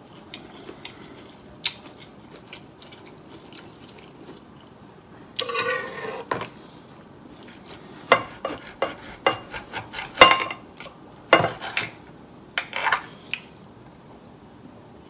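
Chewing with small mouth clicks, then a knife and fork scraping and clicking against a plate while cutting steak, in a run of sharp clinks about eight to thirteen seconds in.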